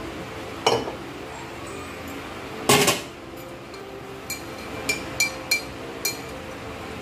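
Steel kitchen utensils knocking and clinking: a knock, a louder clatter about three seconds in, then five short ringing metallic clinks.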